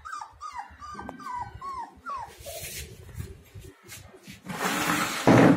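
Long-coat German Shepherd puppy whimpering: a quick run of short, high whines in the first two seconds. Near the end comes a loud burst of handling noise as the puppy is lifted.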